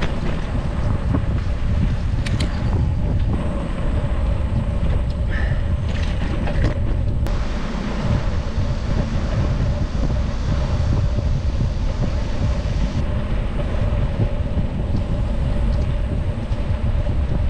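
Wind rushing over an action camera's microphone, mixed with the rolling noise of a bicycle in motion: a steady low rumble with a faint steady hum and a few light clicks.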